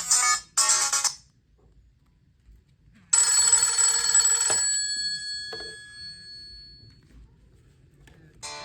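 Nokia 5220 ExpressMusic ringtones playing one after another. A tune cuts off about a second in, then after a short pause a bright bell-like chime strikes and rings out over a few seconds. The next tune starts near the end.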